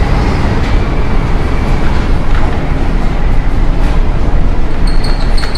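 Ship in a storm at sea: a loud, steady rumble of wind and heavy waves.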